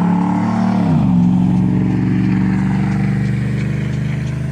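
A small engine running; its pitch drops about a second in as it slows, then holds steady.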